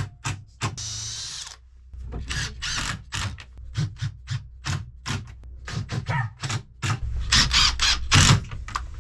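Makita cordless driver driving screws into wood, running in many short bursts with a few longer runs, the longest and loudest near the end.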